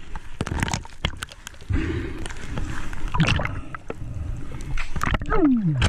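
Water sloshing and splashing around a camera held at the sea surface, dipping in and out, with bubbling gurgles and sharp splashes, and a short falling tone near the end.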